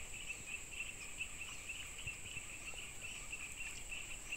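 Insects calling in the creekside vegetation: a steady, high-pitched buzz with a second insect chirping in regular pulses about four times a second.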